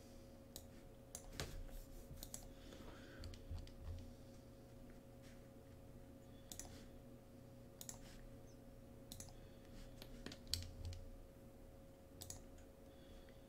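Faint, scattered clicks of a computer mouse and keyboard, a few every second or two, over a faint steady hum.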